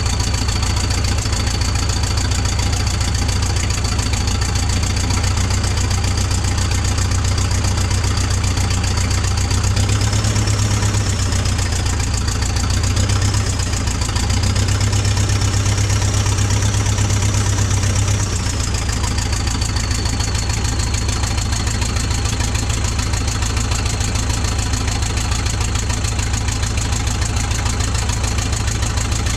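Terex PT75 track loader's diesel engine running at idle, with a steady high whine, on freshly replaced injectors. About ten seconds in it revs up for roughly eight seconds, the whine rising with it, then drops back to idle.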